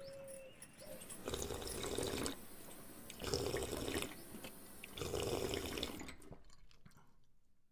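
Water spurting from a hose and splashing into a small plastic tub in three surges about two seconds apart, which stop shortly before the end.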